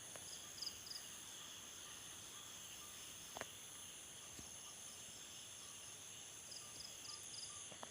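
Night insect chorus: crickets and other insects trilling steadily at a high pitch, with a short pulsed cricket chirp near the start and again near the end. A faint tick about three and a half seconds in.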